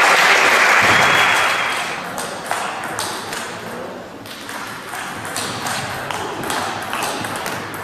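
Spectators' applause fades out over the first couple of seconds. Then a celluloid table-tennis ball clicks sharply, a string of quick separate hits off the bats and the table.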